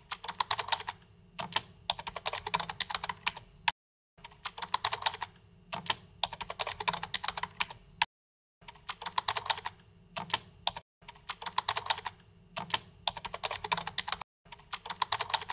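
Typing sound effect for on-screen title text: runs of rapid key clicks, each lasting a few seconds, broken by brief silent gaps about every three to four seconds.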